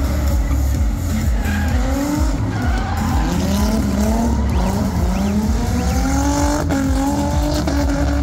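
Drift cars' engines revving hard with tyres screeching as they slide sideways, the engine note climbing and falling, with a long rise from about three seconds in until nearly the end. Music with a heavy bass beat plays underneath.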